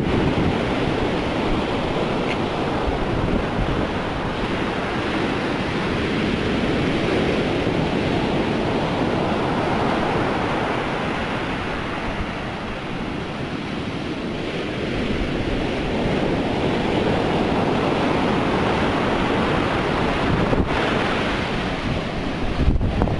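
Storm-driven surf at high tide, breaking and washing up the beach in a steady rush that swells and eases. Wind buffets the microphone with low rumbles, heaviest near the start and the end.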